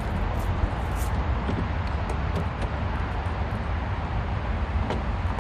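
Steady outdoor background noise: a low rumble with an even hiss over it, and a few faint ticks.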